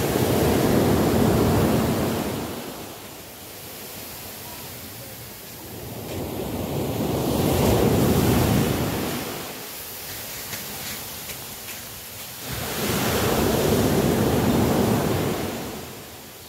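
Waves breaking and washing up onto a sandy beach, the wash swelling and fading three times about six seconds apart.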